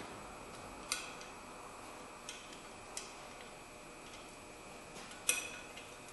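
A handful of sharp little metallic clicks and taps, a second or more apart and the loudest about five seconds in, as a hand tool works against the metal parts of a rear drum brake's backing plate and wheel cylinder.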